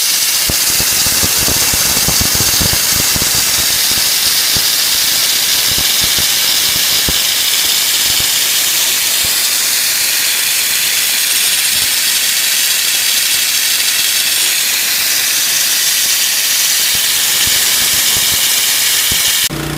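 Steady hiss of water spraying under garden-hose pressure from a leaking nut/valve on the side of a General Pump EZ3035 pressure-washer pump, with the engine off, the jet splashing onto the frame below. The owner doesn't know why water escapes there and doubts it is normal. The hiss cuts off suddenly at the very end.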